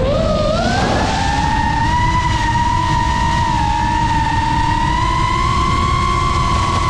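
GEPRC Mark5 FPV quadcopter's brushless motors and propellers whining in flight, the pitch low at first, climbing over the first second as the throttle comes up, then holding steady, over a low rush of wind.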